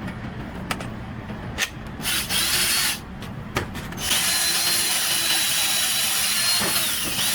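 Clicks as the battery and adapter are fitted into a cordless power tool. Then the tool's motor runs: a short burst about two seconds in, and a steady run with a high whine from about four seconds on. The motor running shows that the Milwaukee 18V battery powers the tool through the adapter.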